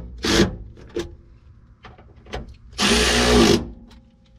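Cordless power ratchet driving the tailgate check's mounting bolts: a short burst of the motor just after the start, a few light clicks, then a louder run of under a second about three seconds in.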